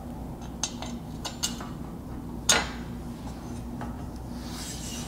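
A handful of light metal clinks and knocks as a roof rack side rail is handled and set against its mounting tabs on the vehicle's roof, the loudest about two and a half seconds in.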